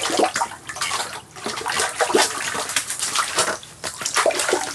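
A freshly landed walleye flopping on wet ice and a foam floor mat: a fast, irregular run of wet slaps and splashes as its body smacks the surface and throws water, with hands grabbing at it.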